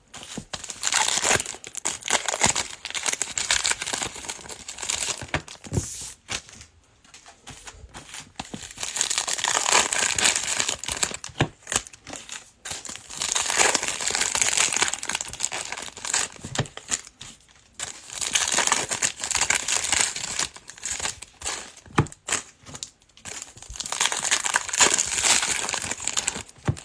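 Wrappers of trading-card packs being torn open and crinkled by hand, in about five bursts of crinkling with short pauses between.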